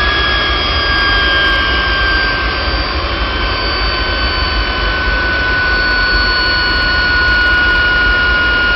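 Gas turbine engine running at steady power: a loud rush and low rumble with a high whine that falls slowly in pitch.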